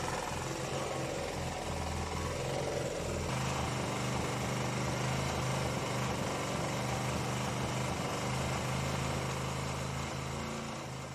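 Small single-cylinder petrol engine of a restored LT5000 portable generator running at a steady speed.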